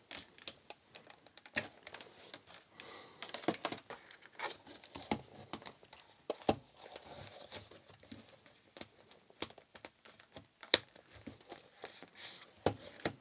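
Handling noise from a 1970s Commodore SR6140 calculator and its leather pouch: irregular clicks of its keys being pressed, with rustling and small knocks as the calculator and pouch are handled, and one sharper knock a bit before three-quarters of the way through.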